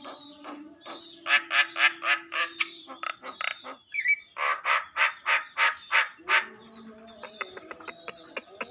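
Javan myna (jalak kebo) calling: two runs of loud, harsh rasping notes at about four a second, with a short rising whistle between them, then fainter clicks and thin whistles near the end.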